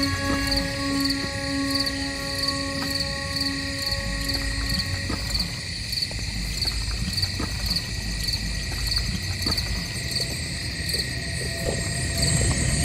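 Crickets chirping steadily in a night ambience, about two chirps a second. A low held tone fades out about five seconds in.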